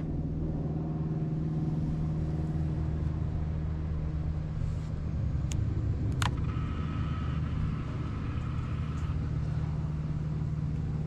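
An engine running steadily at an even idle, a low constant hum that neither revs up nor drops, with a single sharp click about six seconds in.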